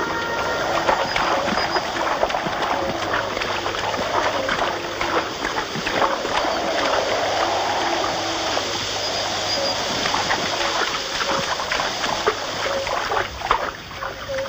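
Continuous splashing of people wading and thrashing through shallow, reedy marsh water, easing off near the end.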